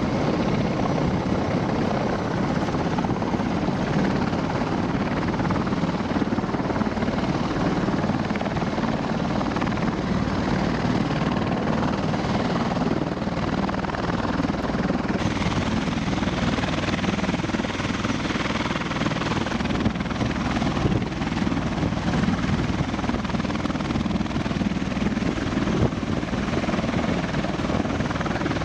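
Several CH-53E Super Stallion heavy-lift helicopters lifting off and climbing away, their three-turbine engines and main rotors making a steady, loud noise.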